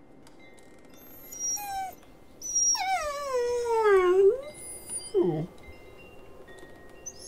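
Siberian husky whimpering: a short high whine, then a long whine that slides down in pitch, and a brief low whimper near the end.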